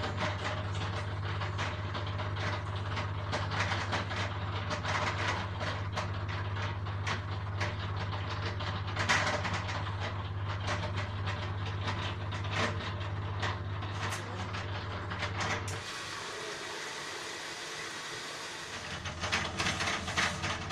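Drain pump of a Bosch Maxx 4 washing machine running with a steady hum and irregular clicking and rattling, the foreign noise of a broken pump impeller that keeps the machine from draining. Near the end the hum stops and a quieter hiss remains.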